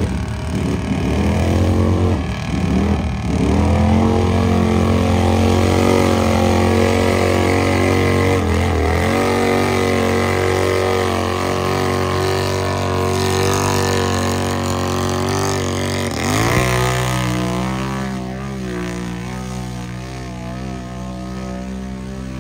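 Mud-racing vehicle's engine revving hard through a mud hole. Its pitch drops sharply and climbs back twice, about a third of the way in and again past the middle, then it runs a little quieter.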